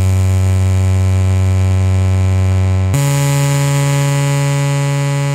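Analog synthesizer oscillator sounding a sawtooth wave: a steady, loud, buzzy held note that steps up to a higher pitch about three seconds in. The synth is being checked function by function after earthquake damage.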